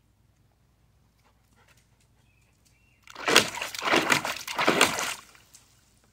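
A dog pawing and splashing at the water in a small dog pool, in a loud splashing burst of about two seconds that starts about three seconds in.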